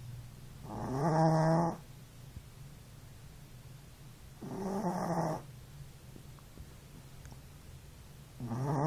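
Chihuahua puppy snoring in its sleep: three pitched snores, each about a second long and about four seconds apart, the last one starting near the end.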